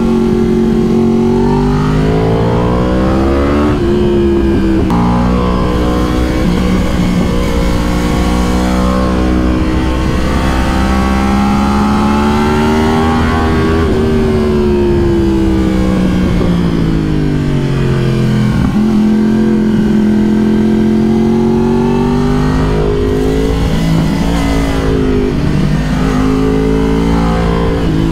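Yamaha R1 inline-four sport-bike engine heard from the rider's seat under acceleration and roll-off through bends. Its pitch climbs and falls several times, with a long rise through the middle and a drop about two-thirds through. Wind rush sits underneath.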